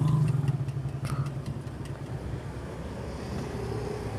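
Motorcycle engine idling close by with a rapid low pulse, a little quieter from about two seconds in, with a few faint clicks early on.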